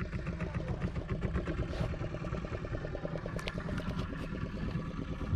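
Small fishing boat's engine running steadily with a fast, even beat.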